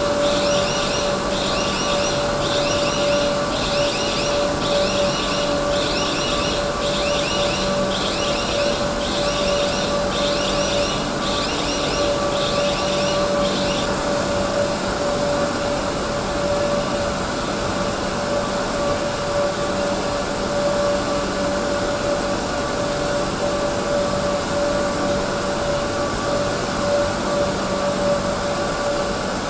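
Train-washing bay machinery running with a steady whirring hiss and a steady hum as a high-speed train rolls slowly through. A high, repeating electronic chirp, about one and a half a second, sounds over it and stops about halfway through.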